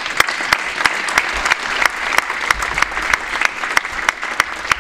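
Audience applauding, a roomful of hands clapping, with some single claps standing out sharply above the rest.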